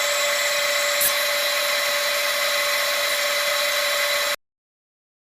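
Big shop-made disc sander running and sanding a piece of wood: a steady hiss over a high hum, with a brief tick about a second in. It cuts off suddenly near the end.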